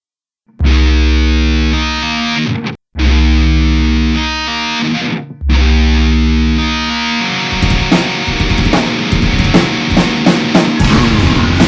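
Lo-fi brutal death metal: after a moment of silence, three long distorted electric guitar chords ring out with heavy bass, each broken off by a short gap. Then, about seven seconds in, the band breaks into a fast, dense, noisy passage full of sharp drum hits.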